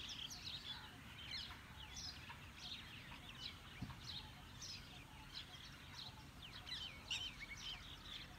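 Birds chirping, faint: a steady stream of short, quick, falling calls from several birds.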